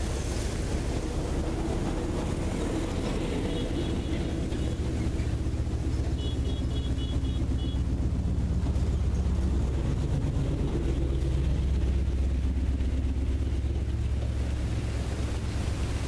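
Outdoor waterside ambience: a steady low rumble of wind buffeting the microphone over a faint motor-like drone. Two short runs of high, rapid chirps come about four and six seconds in.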